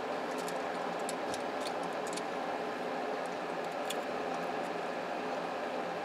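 Faint light clicks and taps of plastic parts on an opened cordless phone handset being handled and fitted, mostly in the first two seconds and once more about four seconds in, over a steady background hum.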